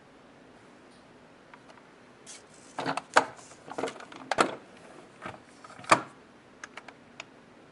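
Handling noise: a run of sharp clacks, knocks and rustling begins a couple of seconds in, with the loudest knock near the end, followed by a few light ticks.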